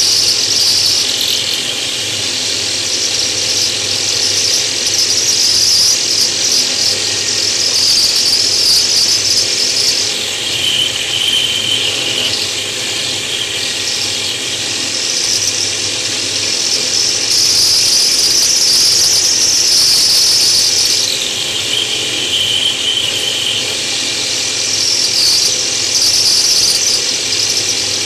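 Router spinning a small diamond bit and grinding into a natural stone tile: a loud, continuous high-pitched whine whose pitch drops twice, each time for a couple of seconds, as the bit is pushed into the stone.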